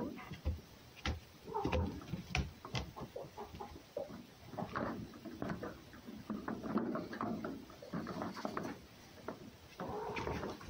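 A red fox and a cat play-fighting on a wooden box: scuffling and sharp taps of paws and claws on the boards, with a short bleat-like animal call about one and a half seconds in and another near the end.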